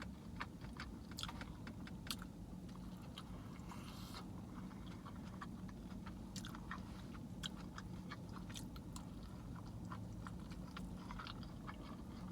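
Close-up chewing and biting of a veggie burrito, with irregular wet mouth clicks, over a steady low hum.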